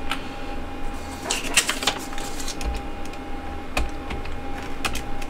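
Computer keyboard key presses: scattered sharp clicks at an irregular pace, several close together about a second and a half in and a few more near the end. A faint steady high tone runs underneath.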